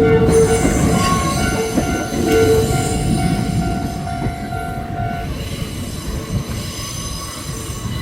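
Kintetsu electric train passing close by: a loud rolling rumble that slowly eases, with steady high whining tones that stop about five seconds in.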